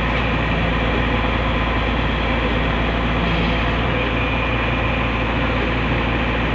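Heavy diesel engine running steadily at a constant speed, with no change in pitch or load.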